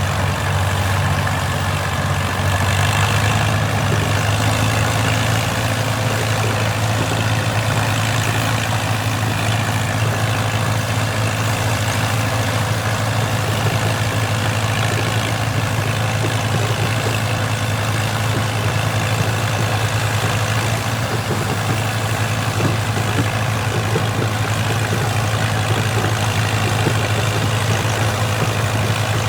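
Engine of vintage harvest machinery running steadily at an even speed, a deep unbroken drone.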